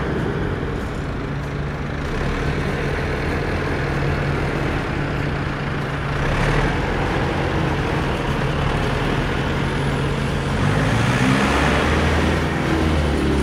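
Tractor engine sound effect running steadily with a low hum. About ten seconds in, a deeper note comes in and the pitch rises, as in a rev.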